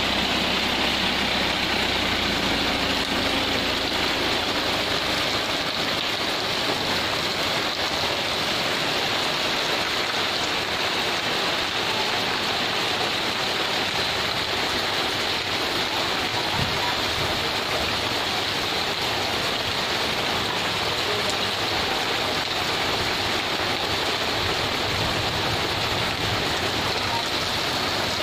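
Steady rain falling on a wet paved street, a constant even hiss.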